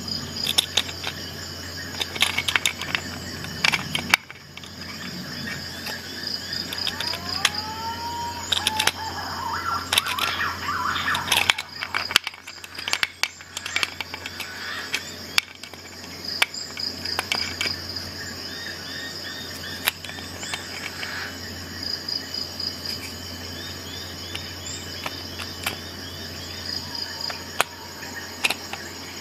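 Scattered sharp metal clicks and clacks from the adjustable pliers head of a Gerber Dual Force multi-tool as it is adjusted and clamped on a hex bolt head. Behind them runs a steady, high pulsing chirp.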